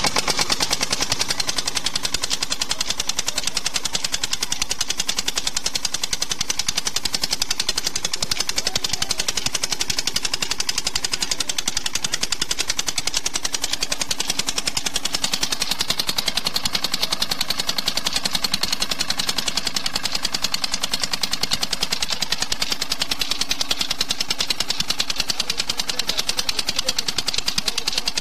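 Petter-type single-cylinder stationary diesel engine running steadily with a rapid, even exhaust beat, fuelled on pure 100% jatropha oil instead of diesel.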